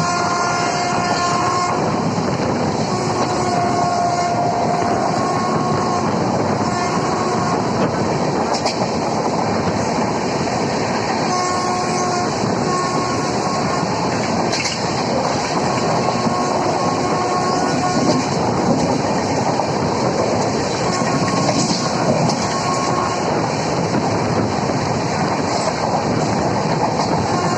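Passenger or express train running through a station at full speed without stopping: a loud, steady rush of wheels on rails with clickety-clack. The locomotive's horn sounds again and again in short two-tone blasts over the noise.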